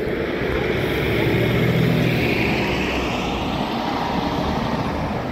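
Nova Bus LFS city bus pulling away and passing, its engine hum swelling to loudest about two seconds in, with a whine rising in pitch as it gathers speed, then easing off as it moves away.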